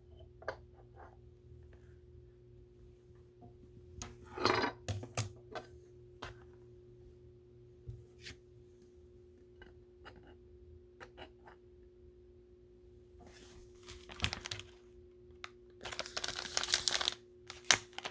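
Trading cards and their packaging handled by hand: scattered short rustles and taps, with a longer rustle near the end, over a steady faint electrical hum.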